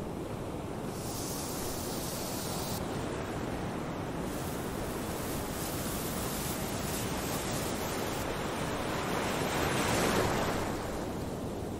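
Steady sea surf with wind, rising in a slow swell about ten seconds in.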